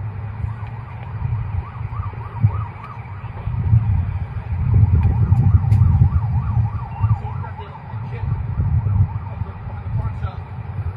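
Emergency-vehicle siren yelping, its pitch rising and falling several times a second, heard through a phone's microphone under a loud low rumble of handling noise. It fades out near the end.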